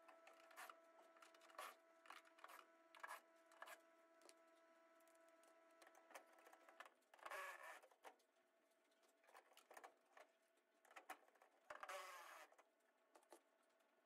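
Faint clicks and scrapes of a screwdriver backing out screws from a Goodman GM9S96 furnace's collector box, with a faint steady hum that stops about halfway through. Two short, louder rustling scrapes come about halfway and near the end.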